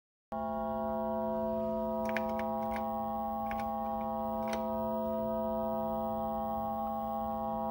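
DIY modular synthesizer holding one steady buzzy note, about 220 Hz with many overtones. A few key clicks from the Apple II Plus keyboard sound over it between about two and four and a half seconds in.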